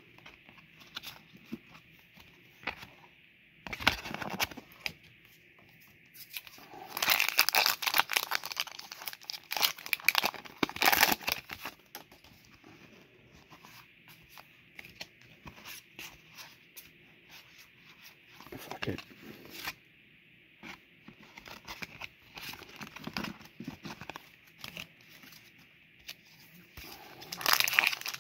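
Pokémon trading cards being flicked and slid through the hands, with crinkling and tearing of a foil booster-pack wrapper. The sound comes in bursts: a short one about four seconds in, a longer, louder one about seven seconds in, and another near the end.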